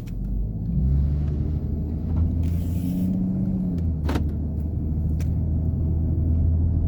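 Motor vehicle running with a steady low rumble, rising slightly about a second in, with a single click about four seconds in.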